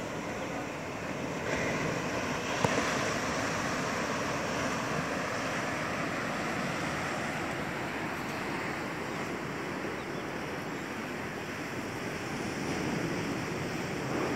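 Steady wash of sea surf mixed with wind on the microphone. A single sharp click about two and a half seconds in.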